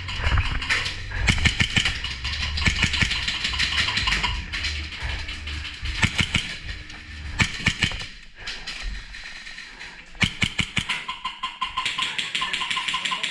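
Music with a driving drum beat and dense percussive clicks; the low end drops out about two thirds of the way through, leaving a quick regular pulse.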